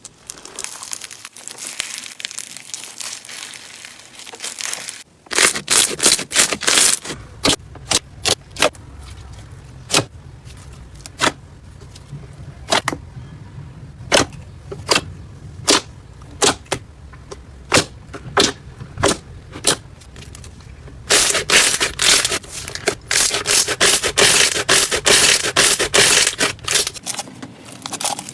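Slime being pressed and stretched by hand, making a string of sharp pops and clicks as air pockets burst. About three-quarters of the way through it turns into dense, continuous crackling.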